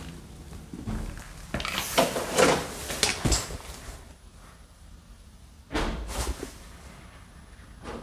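A door being moved, with rattling and knocking in two bursts: a dense one of about two seconds starting about one and a half seconds in, and a shorter one around six seconds in.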